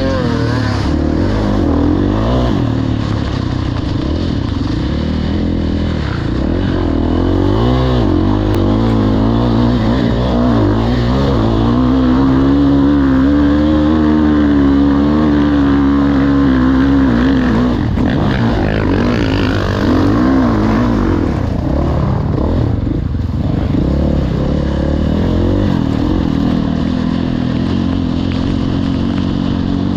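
Motocross bike engine heard close up while racing, the revs rising and falling with throttle and gear changes and held high for a few seconds near the middle.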